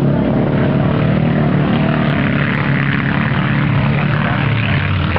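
Banger racing cars racing round the track, their engines making a loud, steady drone.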